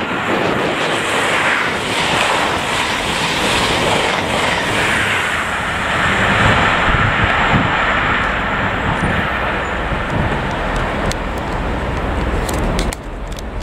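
A Class 43 HST power car and train running through at speed: a loud rush of wheel and engine noise with a whine that falls in pitch as it passes, and wind on the microphone.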